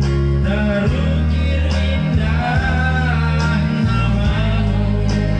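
A man singing through a PA microphone over amplified instrumental accompaniment, holding a long wavering note in the middle.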